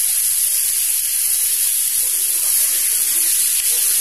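Chicken pieces frying in hot oil in a flat pan, a steady sizzle.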